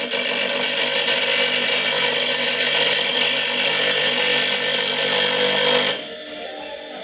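Wolf vintage three-phase bench grinder running, a loud steady grinding noise with many high steady tones that stops abruptly about six seconds in.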